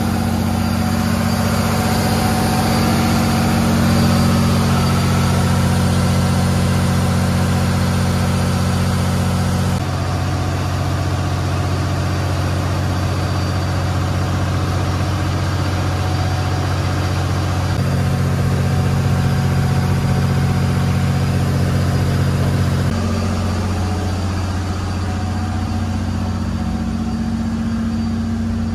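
Steady drone of a riverboat's engine running under way, with water rushing past the hull. Its tone shifts slightly a few times.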